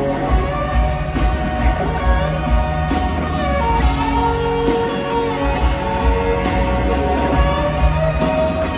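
Live band playing in an arena, with drums, bass and electric guitar over a steady beat, heard from high in the seats with the hall's echo.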